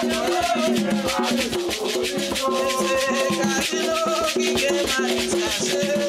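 Haitian konpa band music playing at full level, a fast even shaker-like percussion pattern running under melodic lines.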